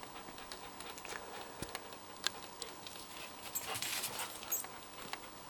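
Dog panting faintly, with scattered light clicks and a short burst of scuffling noise about three and a half seconds in.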